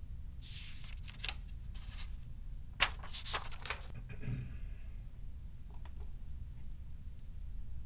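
Two short clusters of rustling and clicking, about half a second in and about three seconds in, over a steady low hum.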